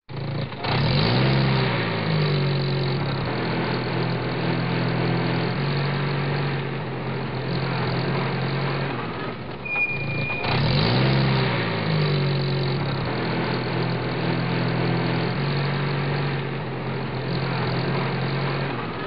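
Truck engine sound effect laid over the toy trucks. It revs up and then runs steadily, and the same clip plays twice in a row. A short high tone sounds near the end of each pass.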